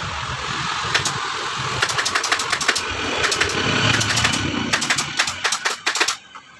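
Pneumatic upholstery staple gun firing: a single shot, then quick runs of sharp clacks as staples are driven through the fabric cover into the sofa's wooden frame. A steady mechanical hum lies underneath and drops away about six seconds in.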